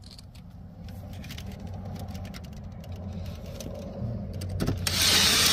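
A cordless drill runs up loudly near the end, driving a screw into a sheet-metal cabinet panel. Before it, only a low steady hum.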